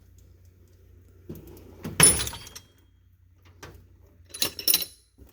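Steel tool chest drawer rolling on its slides and stopping with a loud metallic clang about two seconds in, then a few sharp ringing metal clanks near the end as drawers and tools are handled.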